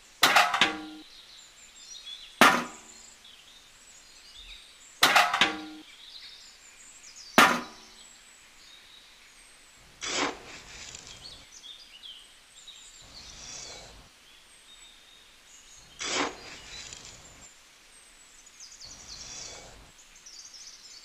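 Four sharp knocks, each with a short ring, about two to three seconds apart. Then twice a softer knock followed by a few seconds of rustling hiss.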